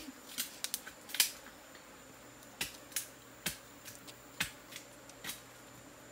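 Sharp wooden clicks and taps, about ten, scattered over several seconds with the loudest about a second in, as an empty wooden hive frame is handled against a wooden bee box.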